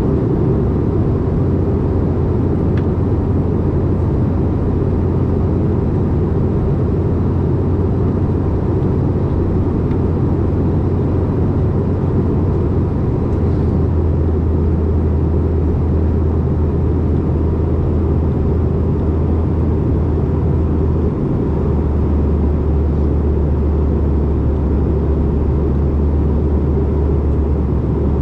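Cabin noise inside a CRJ-550 regional jet in flight: the steady drone of its rear-mounted GE CF34 turbofans mixed with rushing air. The low hum shifts slightly in pitch twice.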